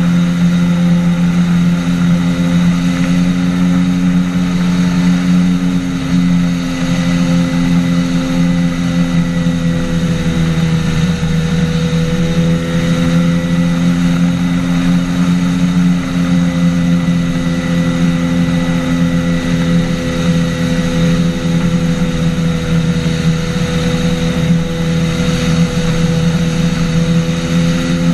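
Flying boat's engine and pusher propeller droning steadily in cruise flight, with a slight sag and recovery in pitch about ten seconds in and again later.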